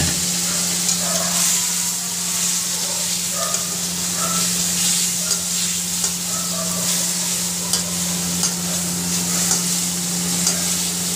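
Tomatoes and spices sizzling in hot oil in an iron kadhai, with a metal spatula scraping the pan about once a second as the masala is stirred. A steady low hum runs underneath.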